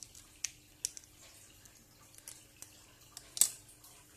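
Light, sharp clicks and taps of plastic phone parts and a plastic pry tool being handled during disassembly of a Samsung Galaxy A8 (2018), about eight scattered clicks with the sharpest about three and a half seconds in, over a faint steady hum.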